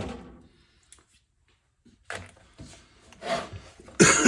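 Wooden drawer of a machinist's tool chest rubbing and scraping, wood on wood, as it is pulled out. It starts with a knock, and the loudest scrape comes near the end, dropping in pitch.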